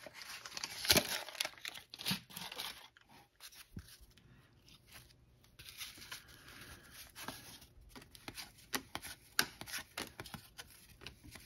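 The wax-paper wrapper of a 1986 Topps baseball card pack crinkling and tearing open, with a loud rip about a second in. Then the cards are slid and flicked through by hand, giving light clicks and rustles.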